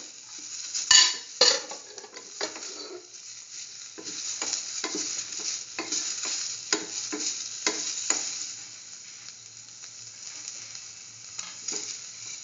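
Chopped onion, shallots, chillies and soy chunks sizzling as they sauté in oil in a metal pan, stirred with a spoon that scrapes the pan in repeated strokes. Two sharp knocks of the spoon on the pan come about a second in, and the stirring runs at about two strokes a second in the middle.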